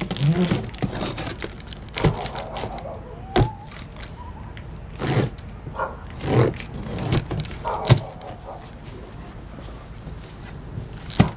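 Large cardboard box being opened by hand: packing tape tearing and cardboard flaps scraping, flexing and folding back, with a series of sharp knocks and rustles.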